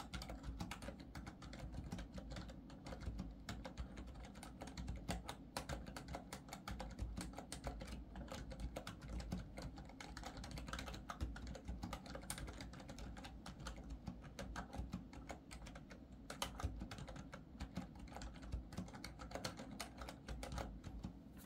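Continuous fast typing on a Skydigital NKEYBOARD NKEY 8K membrane gaming keyboard: a dense, irregular stream of keystrokes.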